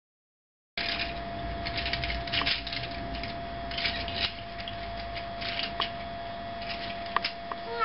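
Plastic toy train carriages and plastic track being handled by hand, with light irregular clicking and rattling and a couple of sharper clicks near the end, over a faint steady hum. Silent for the first moment.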